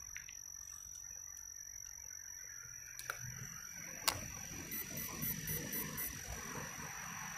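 Faint handling of an RC truck's battery leads and ESC wiring: two sharp clicks about three and four seconds in, then light rustling and fumbling. A steady high-pitched whine sits underneath.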